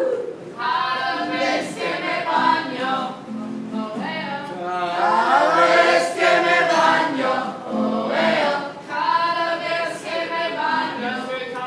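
A group of voices singing a song together, in a choir-like chorus.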